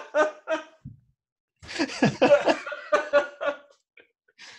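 Men laughing: a few short bursts at the start, then a longer run of laughter from about one and a half seconds in that dies away a couple of seconds later.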